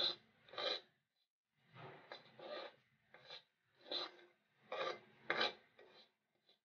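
Steel spoon scraping across a steel kadai while stirring semolina as it roasts: a string of short, gritty scrapes, about one a second.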